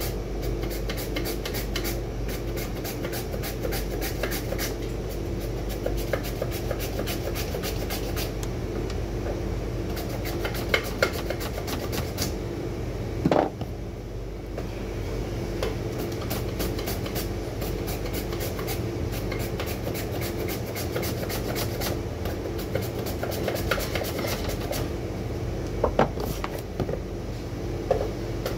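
A carrot being rasped back and forth over a vegetable slicer's blade, a steady run of quick scraping strokes, with a few sharper knocks around the middle and near the end. A steady mechanical hum runs underneath.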